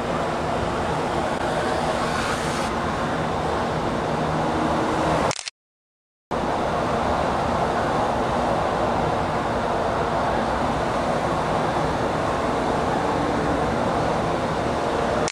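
Steady city traffic noise, cut to dead silence for under a second about five and a half seconds in.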